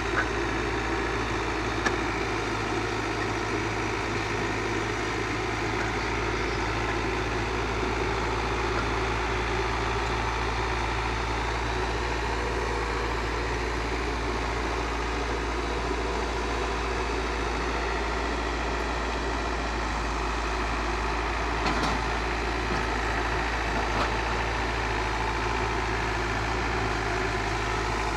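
Diesel engine of a Komatsu PC71 mini excavator running steadily at a low, even speed, with a few short sharp knocks over it.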